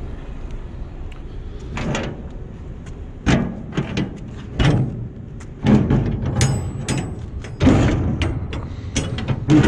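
Steel shipping container rear door being unlatched by hand: a series of sharp metal clanks and rattles as the handle retainers and locking bars are swung free, several of them ringing, the loudest coming in the second half.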